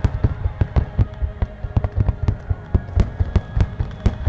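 Fireworks finale: a rapid barrage of bangs, several a second, with no break.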